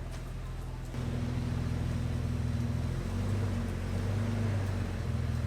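A vehicle engine running steadily at a low speed. It comes in abruptly about a second in, and its pitch shifts a little in the middle.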